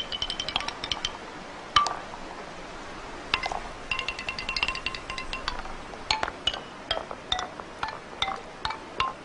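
Wooden ball rolling down a long wooden xylophone, striking the bars one after another to play a slow melody. Partway through it clatters in a rapid run of wood-on-wood clicks as it drops through a zigzag chute, then goes back to single notes about every half second.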